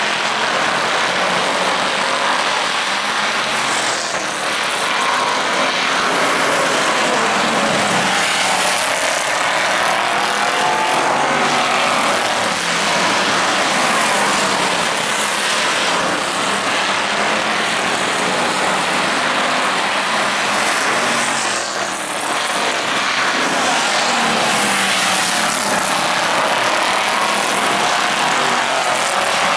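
A field of street stock race cars running laps on an oval track, their engines loud and continuous, pitch rising and falling as cars pass and rev through the turns.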